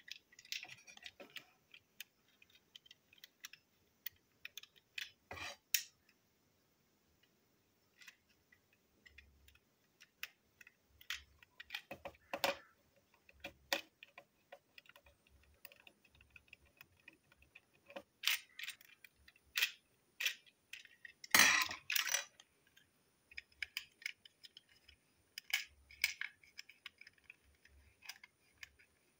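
Handling clicks and taps as a plastic toy train cattle wagon is unscrewed and taken apart by hand with a screwdriver: irregular small clicks of plastic parts and metal on plastic, with a louder clatter about three-quarters of the way through.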